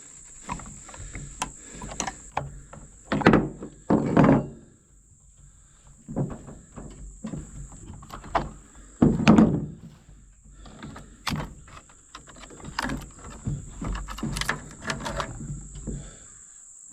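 Irregular knocks, clicks and clunks of a chainsaw being handled and taken apart to free barbed wire caught on its sprocket gear, with a few louder clunks. Insects buzz steadily in a high, even tone.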